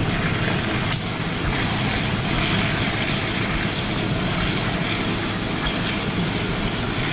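Fire hose flowing a straight stream into a burning room, the water striking the ceiling and raining down as a steady rushing spray, with an engine running underneath.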